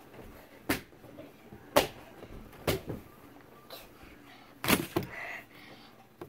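Four sharp knocks and thumps spread over a few seconds as a child flips and lands on a bed.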